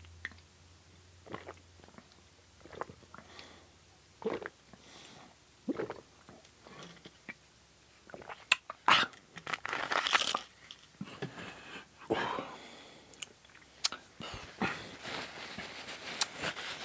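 Close-miked mouth sounds: swallowing gulps of sparkling water from a plastic bottle, then lip smacks and sharp mouth clicks, loudest about halfway through. Near the end a paper napkin rustles as it is wiped across the mouth.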